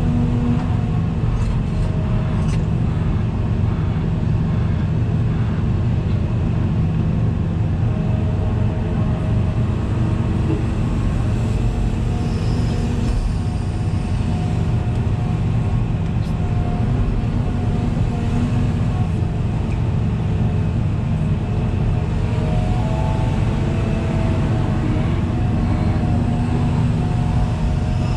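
Hitachi 350 long-reach excavator's diesel engine and hydraulics running steadily, heard from inside the cab, with faint pitched tones shifting as the boom and bucket are worked.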